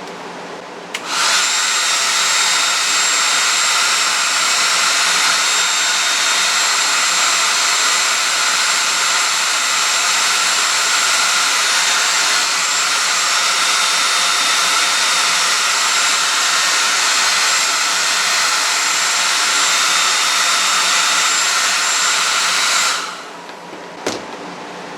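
Hand-held hair dryer switched on about a second in, blowing steadily with a high whine, then switched off near the end; it is heating tape to soften its adhesive so the tape can be peeled off.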